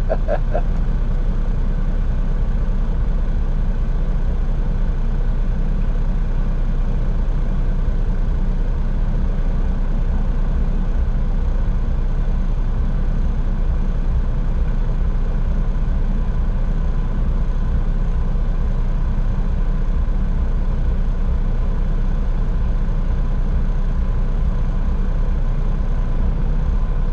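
Peterbilt 379's Cummins diesel idling through straight pipes, a steady low rumble heard from inside the cab.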